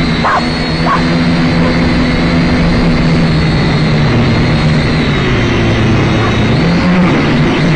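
Syma X5C quadcopter's small electric motors and propellers buzzing steadily, the pitch wavering a little as the throttle changes.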